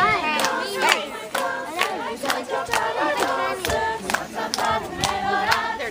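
A group of voices singing a French Canadian folk song together, with hand claps about twice a second keeping the beat.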